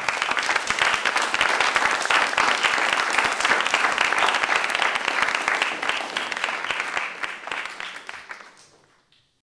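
Audience applauding, a dense, even clatter of many hands clapping that fades out near the end.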